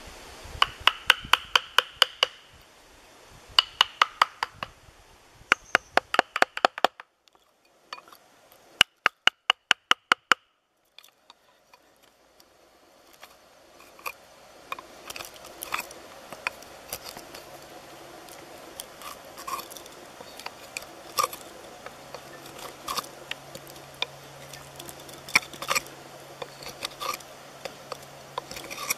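Cutting a hole through a wooden carving bench with a chisel: quick runs of sharp, ringing strikes, about five a second, in four bursts over the first ten seconds. After that comes quieter scraping and crunching of wood as the tool works in the hole.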